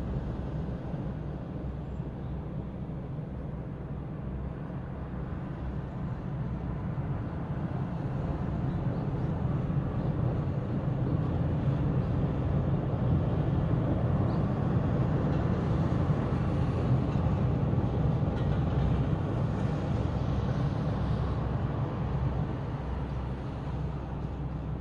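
Steady rumble of town traffic, swelling for about ten seconds through the middle as a vehicle passes, then fading again.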